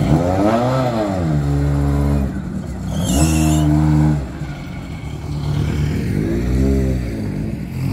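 Rally-prepared Ford Focus engine blipped several times in the paddock, each rev rising and falling in pitch, with steadier low-rev stretches between. A sharp hiss comes with the loudest stretch about three seconds in.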